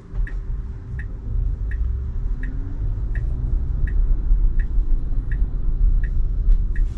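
Tesla Model Y turn signal ticking steadily, about one tick every 0.7 seconds, heard from inside the cabin over a low road rumble that grows louder as the car moves off through a right turn.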